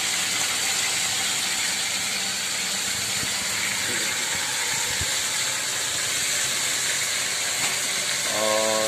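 Wet boiled cauliflower florets sizzling steadily in hot oil with cumin seeds in a pan, an Indian tadka tempering, with a few faint knocks a few seconds in.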